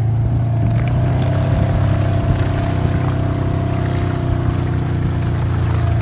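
Side-by-side utility vehicle's engine running steadily with a low, even drone.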